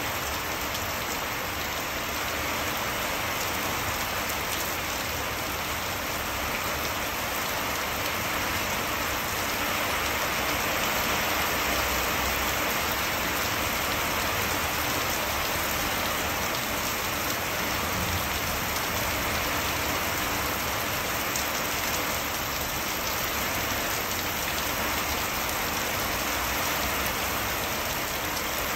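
Heavy monsoon downpour falling steadily on a flooded concrete rooftop, a dense even hiss of rain splashing into standing water, swelling slightly about halfway through.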